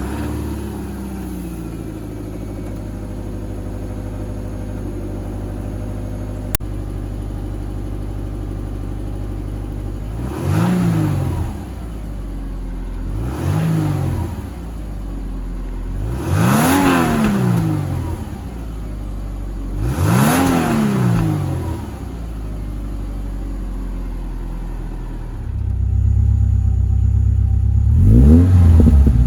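2006 Subaru Impreza 2.5i's 2.5-litre flat-four running through a new TurboXS titanium-tip axle-back exhaust right after its first start, idle settling down at first. About ten seconds in it is revved four times, each rev rising and falling back to idle, then the idle gets louder and two quick revs come near the end.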